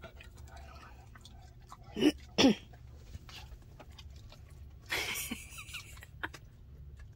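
Pit bull chewing a chunky meat treat, with soft irregular crunching clicks. Two short, loud, low sounds come about two seconds in, and a short rasping noise about five seconds in.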